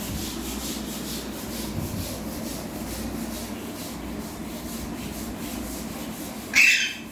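Steady rubbing, scraping noise with faint even pulses, then a short, loud, harsh burst near the end.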